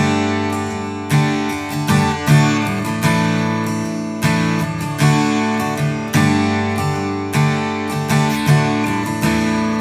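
Acoustic guitar strummed in an uneven, syncopated pattern, with sustained chords moving between D major and G.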